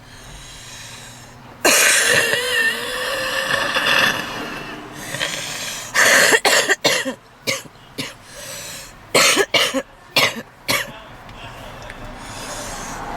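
A woman's smoker's cough: a long, loud wheezing breath with a wavering whistle in it starts about a second and a half in and lasts about three seconds. It is followed by clusters of sharp coughs around six seconds in and again around nine to eleven seconds, with rasping breaths between them.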